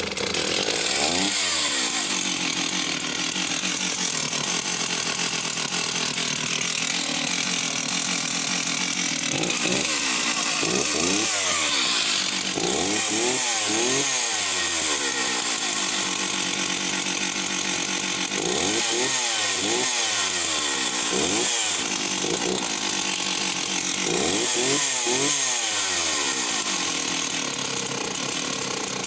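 Stihl 038 AV two-stroke chainsaw starting with the choke off and running, revved up and let back down to idle several times in short blips between stretches of steady running.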